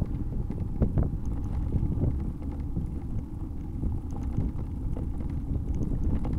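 Low wind rumble buffeting the microphone while riding a bicycle, with a few short knocks, two close together about a second in.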